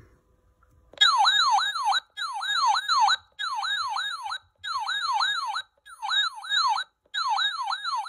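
Radio Shack 12-519 weather radio's alert tone sounding from its small speaker: a loud, siren-like warble sweeping up and down, repeated in six bursts of about a second each, starting about a second in. It is played as a preview while the night alert volume is being set.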